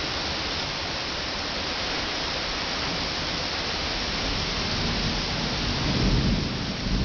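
Steady rain hissing, with a low thunder rumble building over the last second or two.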